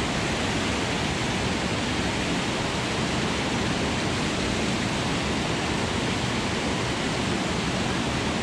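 Rushing creek water, a steady, even rush of noise with no change.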